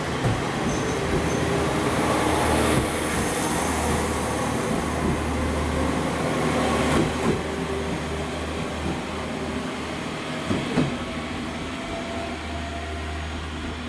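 Electric train running along the station track, with a steady low hum and a few sharp knocks of wheels over rail joints, fading slowly as it moves away.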